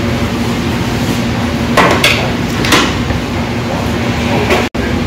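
Short clinks and knocks of tableware on a table as a stainless-steel rice bowl and dishes are set down, a few separate knocks with the loudest about two seconds in, over steady room noise with a low hum. The sound cuts out for an instant near the end.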